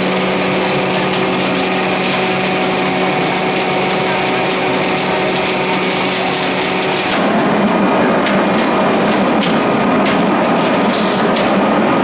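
Mini concrete batching plant running: a steady machine hum with several constant tones. About seven seconds in, it changes abruptly to a rougher rattling churn with scattered knocks.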